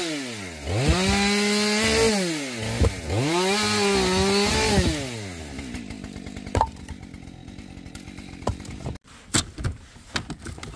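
Two-stroke chainsaw revving up to full speed and dropping back twice, then dying down about five seconds in. A few sharp knocks follow.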